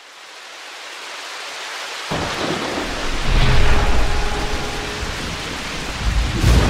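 Rain falling, its hiss fading in, then thunder rumbling in suddenly about two seconds in, growing louder a second later, with another surge of thunder near the end.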